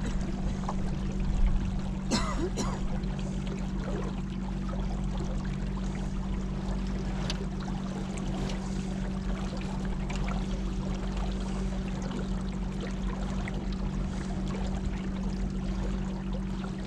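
Water trickling and splashing along the hull of a kayak moving downriver, over a steady low hum.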